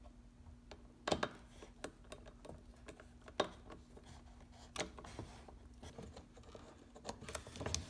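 Scattered light clicks and taps as a screwdriver and fingers work the screws and plastic parts of a car headlight housing, about a dozen sharp ticks spread unevenly through the few seconds.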